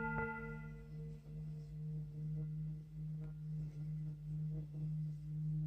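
Antique Tibetan singing bowl with a light mallet tap right at the start, then a deep, steady tone that holds and gently wavers in loudness as the mallet is rubbed around the rim, with faint scraping of the mallet.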